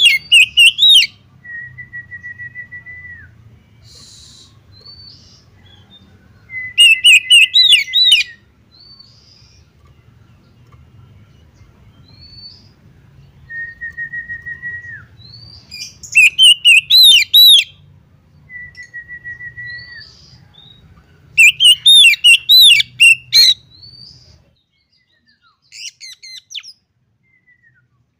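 Oriental magpie-robin singing: loud bursts of rapid, varied whistled phrases every five or six seconds. Between the bursts come single long, level whistles that drop at the end, and the song turns softer near the end.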